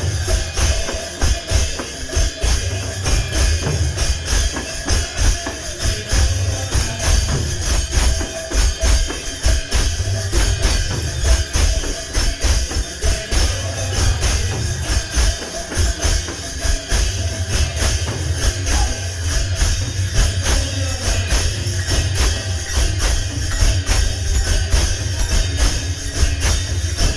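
Kirtan devotional music with a steady, fast rhythm of drum beats and jingling metal percussion.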